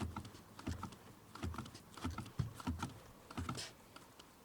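Volkswagen Polo sedan clutch pedal pressed and released over and over, a string of light clicks and knocks from the pedal and its linkage, about one or two a second. It comes with a slight squeak that is still there after the slave cylinder was replaced and the pedal bushing greased.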